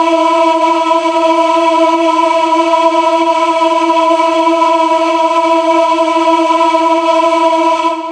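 Music: one long held note with overtones, steady in pitch and level, starting to fade out at the very end.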